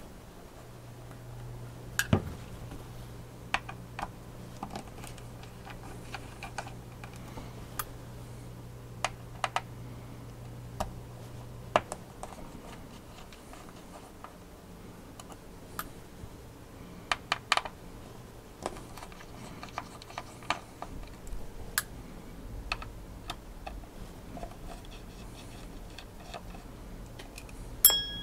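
Small screws being backed out of a GTX 680 graphics card with a screwdriver and set into a metal parts dish: scattered light clicks and metallic ticks a second or two apart. A low steady hum runs under them for about the first twelve seconds.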